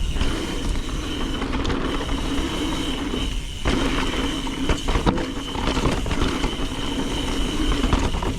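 2020 Trek Remedy 9.8 mountain bike riding down dirt singletrack: the tyres roll over the dirt and the bike rattles over the bumps, with low rumble on the microphone and a steady buzz that cuts out briefly just past three seconds.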